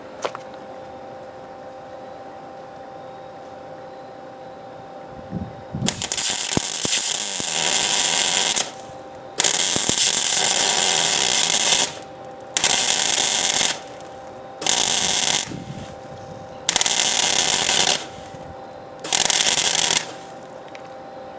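Welding arc crackling in six separate bursts, each one to three seconds long, starting about six seconds in, as metal is laid onto a broken exhaust manifold bolt in an LS cylinder head. The weld is not fusing into the bolt. A steady hum runs underneath.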